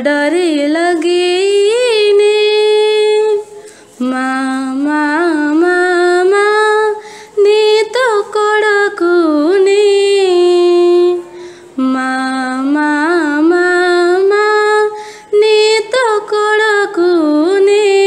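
A woman singing an Odia devotional bhajan to Maa Durga in a solo voice. She sings in phrases with long held notes and ornamented bends in pitch, with short pauses between the phrases.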